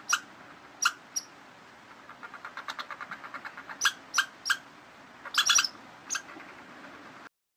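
Short, sharp, high-pitched squeaks of a small animal, some single and some in quick clusters, with a run of faint rapid chirps in the middle; the sound cuts off suddenly near the end.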